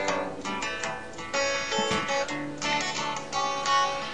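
Acoustic guitar music, with plucked notes and strummed chords.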